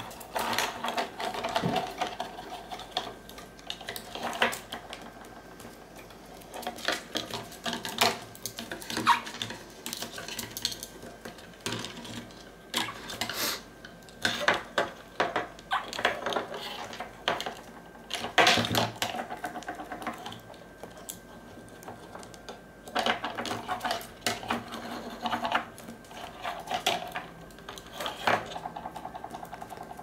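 A monk parakeet pecking and nibbling at sunglasses and other small hard objects on a desk. Its beak taps, clicks and rattles against them in bursts of rapid clicks with short pauses between.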